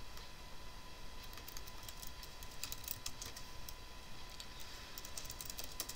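Typing on a computer keyboard: irregular keystroke clicks, some in quick runs, as a command line is entered. Underneath runs a faint steady high whine from the computer.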